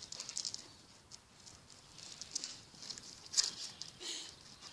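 Dogs' claws clicking and scraping on concrete as several dogs jostle and play, a quick patter of small ticks with a sharper scrape about three and a half seconds in.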